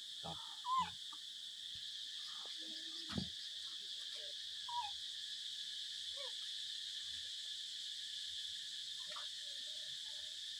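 Macaques give a few short squeaky calls that glide up and down, the loudest about a second in, over a steady high buzz of insects. There is a short thump about three seconds in.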